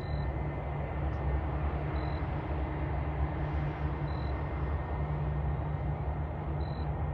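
Steady low rumble of an Airbus A320-200 after landing, with faint short high tones a couple of seconds apart.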